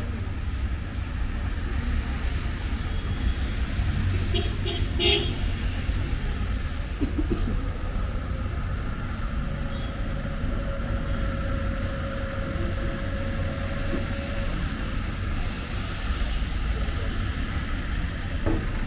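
City road traffic: a steady low rumble of vehicle engines, with a horn sounding and one tone held for about five seconds in the middle.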